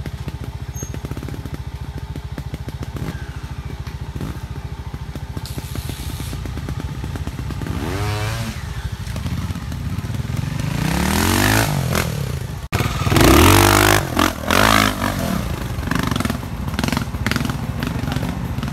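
Trials motorcycle engine idling with a steady fast beat, then blipped and revved in short rising and falling bursts from about eight seconds in as the bike is worked up a rock step. The revving is loudest a little past the middle, just after a brief break in the sound.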